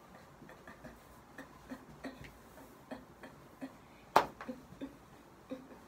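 Faint, irregular taps and clicks from movement in a small room, a few each second, with one sharp, louder click about four seconds in.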